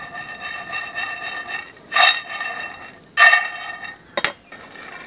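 Peanuts dry-roasting in a frying pan on a small gas stove, the pan shaken and scraped against the burner's metal pan support with a ringing scrape that is loudest about two and three seconds in, followed by a couple of sharp clicks.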